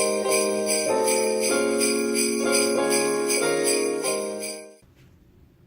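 Christmas-style intro music led by jingle bells shaking in a steady rhythm over a simple melody, cutting off suddenly near the end, leaving only faint background.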